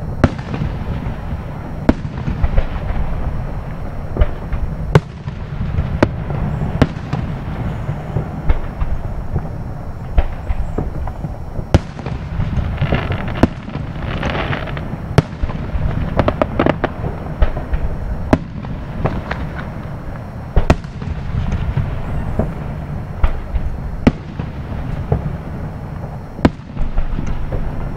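Distant aerial fireworks shells bursting: a string of sharp bangs at irregular intervals over a steady low rumble, with a stretch of crackling about halfway through.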